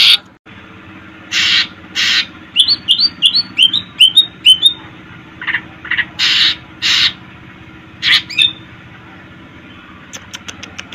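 Cucak ijo (green leafbird) singing: short harsh rasping calls mixed with a quick run of about eight rising chirped notes, then a rapid series of ticking clicks near the end.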